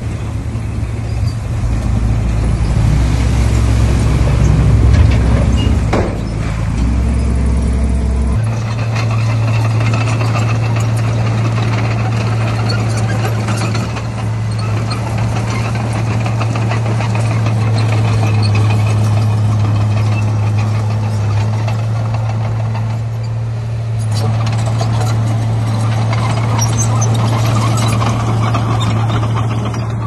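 Heavy diesel earthmoving machine engine running under load. Its low note shifts about eight seconds in, then holds steady.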